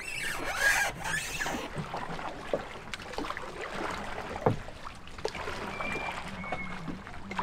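Wooden paddle working through the water beside a small fibreglass open boat, with splashing and occasional sharp knocks.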